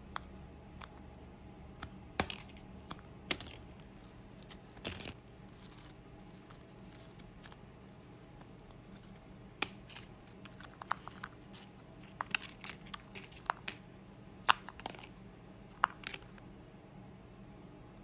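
Frozen pineapple juice cracking and popping free of a silicone pop-it fidget toy as it is flexed and pressed, with the frozen pieces dropping onto a paper plate. Irregular sharp clicks and crackles, some single and loud, some in quick clusters.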